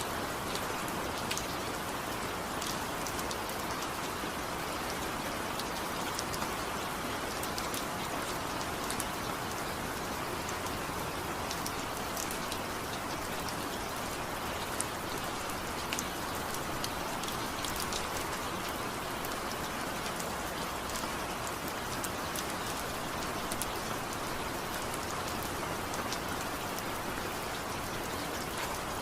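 Steady rain falling, an even hiss with scattered sharper drop ticks, with no thunder or music.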